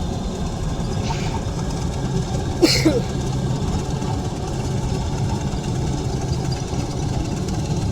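Mini combine harvester's engine running steadily, with one sharp click about two and a half seconds in.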